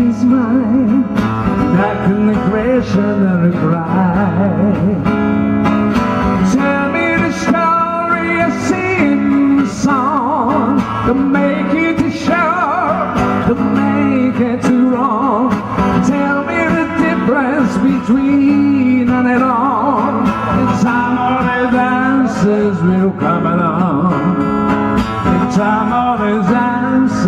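A man singing a song over guitar accompaniment, his voice wavering with vibrato on held notes.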